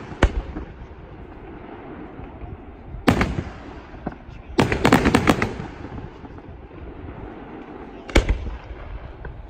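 Aerial fireworks shells bursting: a bang right at the start, a louder bang about three seconds in, a quick volley of reports and crackling around five seconds, and a single sharp bang near the end, each trailing off in a low rumble.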